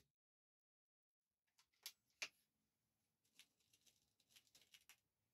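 Faint, sharp clicks: two clearer ones about two seconds in, then a quick cluster of small ticks near the end.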